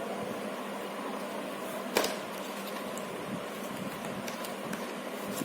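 Steady background hum and hiss, like a fan or air conditioner, with one sharp tap about two seconds in and a few faint light ticks after it.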